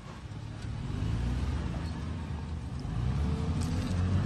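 Toyota Land Cruiser Prado's engine running as the SUV pulls away along a dirt track, growing louder from about a second in.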